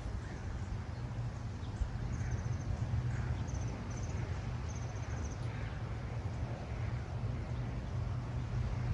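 Outdoor ambience: a steady low wind rumble on the microphone, with faint high-pitched chirps in short quick runs a few times between about two and five seconds in.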